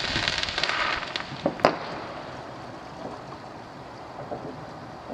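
Fireworks: a crackling hiss that fades out in the first second, then two sharp bangs in quick succession about a second and a half in, followed by a few fainter distant pops over a steady wind-like rush.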